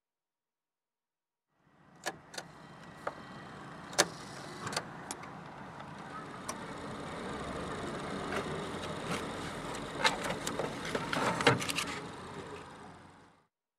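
Automatic car wash heard from inside the car: rotating brushes and water sweeping over the body and glass make a rushing noise that slowly grows louder. Sharp knocks and clicks come through it, thickest near the end, and the sound fades in about two seconds in and cuts off just before the end.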